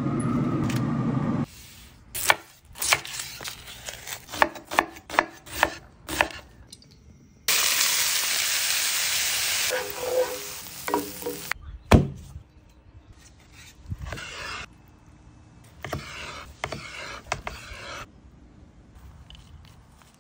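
A run of cooking sounds. A steady low hum gives way to a series of sharp knocks. Then diced onions sizzle loudly in a hot pan and are scraped and stirred with a wooden spatula, with one heavy knock in the middle and more stretches of sizzling near the end.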